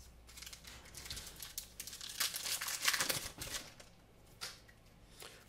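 Foil Pokémon booster pack wrapper crinkling and being torn open, a dense crackle that is loudest about two to three seconds in and dies away about a second later.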